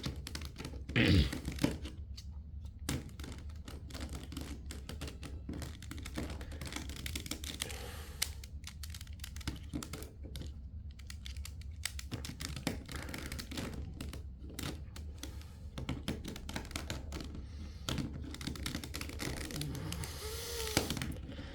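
A 3x3 speed cube's plastic layers being turned rapidly one-handed: a steady run of quick clicks and clacks, with a louder thump about a second in.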